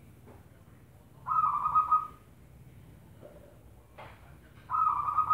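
Zebra dove (perkutut) cooing: two loud trilled coos about three seconds apart, with a soft lower note between them.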